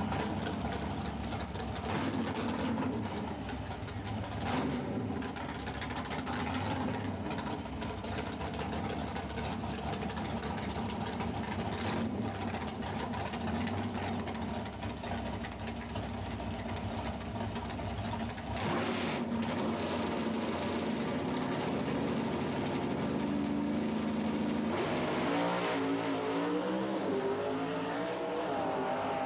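Naturally aspirated 598 cubic-inch Ford big-block V8 of a Pro Stock Thunderbird drag car running at idle after its burnout. Near the end it is revved, its pitch rising and falling, as the car stages at the starting line.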